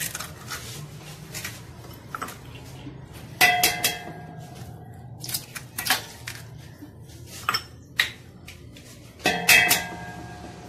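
Eggs cracked one after another on the rim of a stainless steel mixing bowl: a series of sharp knocks, the loudest about three and a half seconds in and again near the end, each with a short metallic ring from the bowl. A steady low hum runs underneath.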